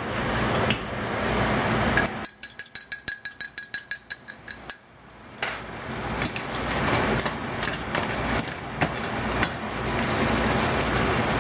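An egg beaten in a glass measuring cup: a fast, even run of clinks for about two and a half seconds. Before and after it, crab claws in sauce sizzle in a frying pan, the sizzle rising again as the beaten egg is poured into the pan.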